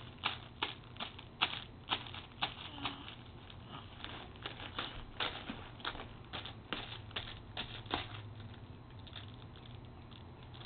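Clear cellophane wrapping crinkling and crackling irregularly as a baby's hands grab and pull at it.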